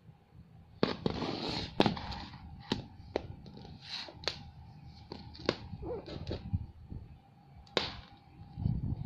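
Handling noise from a tablet: a scattering of sharp clicks and knocks as it is turned over, set down on a wooden floor and its glass screen tapped, with a short stretch of rubbing about a second in and a dull thud near the end. A faint steady tone runs underneath.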